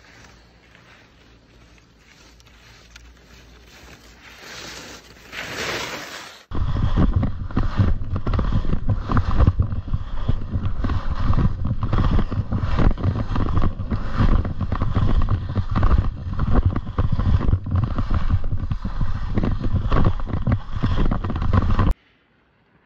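Skis scraping over packed snow: faint at first and growing louder as a skier carves closer, then, from a sudden change about six seconds in, loud repeated scraping and chattering of skis over bumpy snow with a heavy wind rumble on the microphone, which cuts off abruptly near the end.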